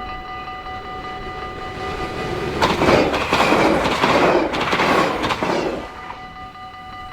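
A train passes over a Dutch level crossing, loudest for about three seconds from roughly two and a half seconds in, with wheel clatter over the rail joints. The crossing's warning bell rings on steadily underneath.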